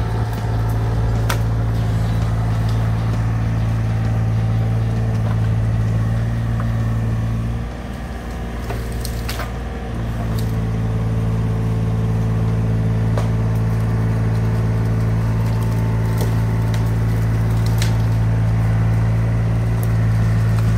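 Amphibious excavator's diesel engine running at a steady pitch, dipping briefly about eight seconds in, with scattered sharp cracks and clicks from the digging work.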